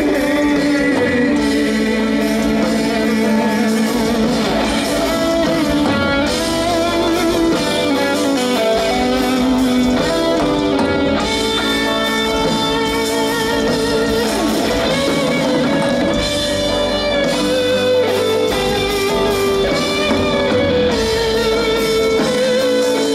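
Heavy metal band playing live, a distorted electric guitar carrying a long melodic lead line with held, wavering notes over the band.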